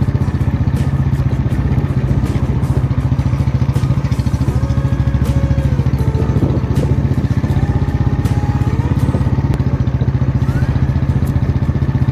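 Motorcycle engine running steadily under way, with an even low throb. Scattered small knocks and clatter come from the bike going over a rough, potholed road.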